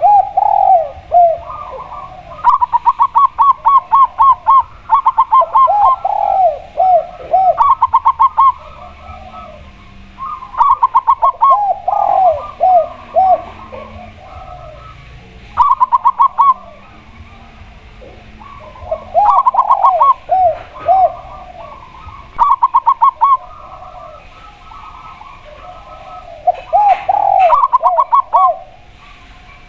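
Spotted dove and zebra dove cooing: bouts of rapid, repeated short notes at two pitches, one higher and one lower, overlapping and recurring every few seconds.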